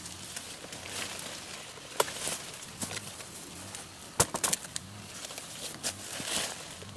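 A few sharp clicks and snaps over a faint rustling, with one about two seconds in and a quick cluster about four seconds in.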